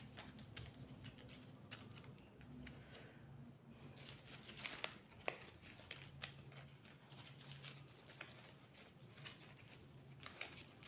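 Dry banana-plant straw strips rustling and crackling faintly as they are handled and woven, in many short scattered crinkles, over a faint low steady hum.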